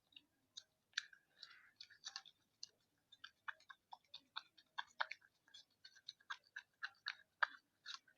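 Sticky slime being mixed, making faint irregular wet clicks, a few a second.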